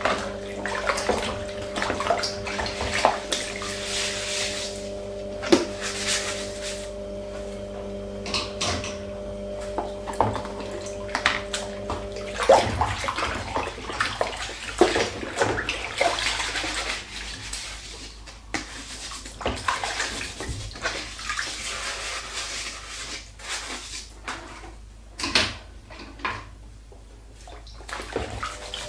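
Washing up by hand in a stainless steel sink: soapy water sloshing and splashing, with plastic plates knocking and being scrubbed with a sponge. A steady low hum runs underneath and stops about halfway through.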